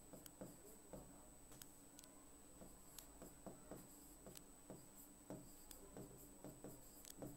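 Near silence with faint, irregular small taps and scratches of writing, over a faint steady hum.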